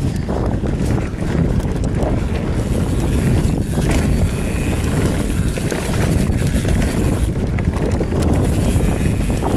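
Wind noise on the microphone over the rumble and rattle of a Commencal META TR29 mountain bike rolling over a dry dirt trail, with many small irregular knocks from the bumps.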